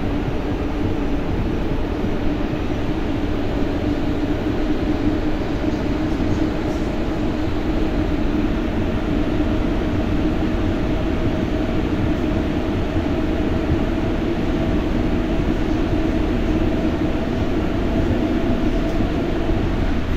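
Interior noise of an MP14 rubber-tyred Paris metro train running through a tunnel: a steady rumble with a faint, even hum.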